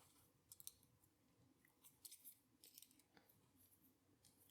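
Near silence with a scatter of faint, short clicks and ticks, as of small metal parts and a tool being handled while a padlock is taken apart.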